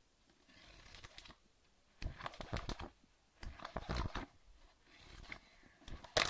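Handling noise of an object held and moved against the microphone: three bursts of rubbing and bumping, the last and loudest near the end.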